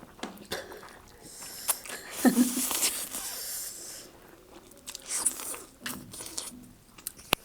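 Close-up eating sounds of a bite of spicy instant noodles: biting and chewing, with irregular wet mouth noises and a few sharp clicks.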